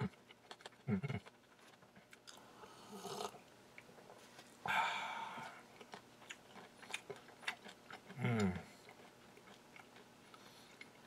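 Someone chewing Red Hots, small hard cinnamon candies, in their mouth: a run of small crunching clicks. Two short hums from the chewer come about a second in and near the end, with a breathy exhale about halfway.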